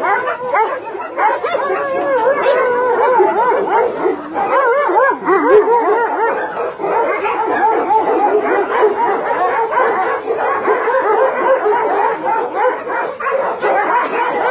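Many dogs barking and yelping at once: a dense, unbroken chorus of overlapping, wavering calls.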